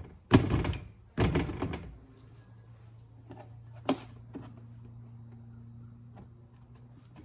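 Two loud, short knocks about a second apart as the mounted mud flap and its hardware are handled, followed by a faint steady low hum with one sharp click about four seconds in.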